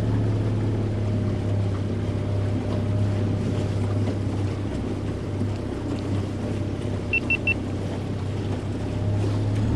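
A boat's outboard engine running steadily under way, a constant low drone with wind and water noise over it. About seven seconds in come three quick high-pitched electronic beeps.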